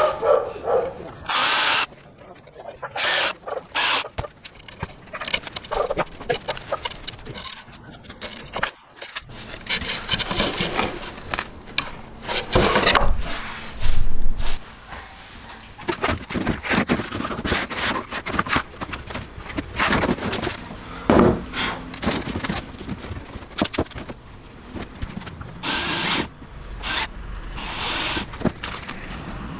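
Intermittent workshop tool work on wood: short, irregular bursts of a power tool mixed with knocks and scrapes, loudest about twelve to fourteen seconds in.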